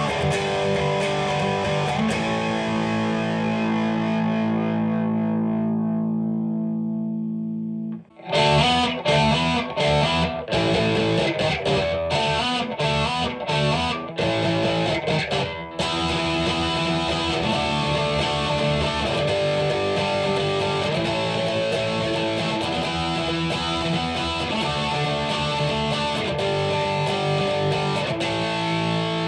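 Distorted electric guitar: a Telecaster with both pickups on, through a Marshall DSL1 on its Ultra Gain channel. It opens on a chord left ringing with the Fralin high-output bridge pickup. About eight seconds in, a second sample starts with the stock Vintera bridge pickup, playing choppy stop-start chords, then chords left ringing.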